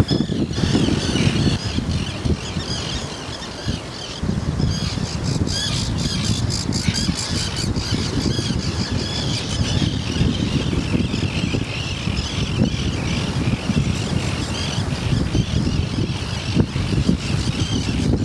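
A colony of terns calling, with many harsh, overlapping calls that are thickest from about five seconds in. Beneath them is a steady low rumble of wind and surf.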